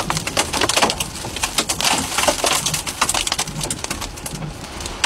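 Hurricane eyewall wind and driving rain, full of irregular sharp cracks and rattles of rain and debris striking, over a low rumble.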